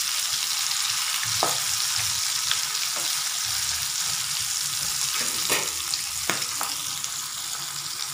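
Fish pieces shallow-frying in hot oil in a pan: a steady sizzle, with a few sharp clicks of a slotted spatula against the pan as the pieces are turned over.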